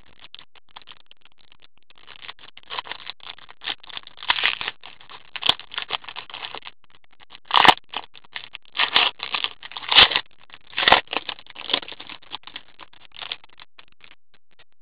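Hockey cards and their packaging being handled: irregular rustling and scraping, with a few sharp clicks and taps scattered through.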